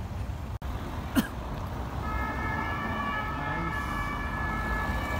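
City street traffic rumbling, with a single sharp crack about a second in. From about two seconds in, an emergency-vehicle siren sounds as a steady set of high tones.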